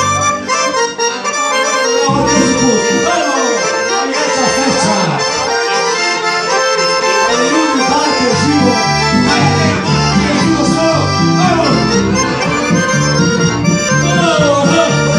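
Two accordions and an electronic keyboard playing a lively tune together, live and amplified. The deep bass is thin for the first couple of seconds and then fills in.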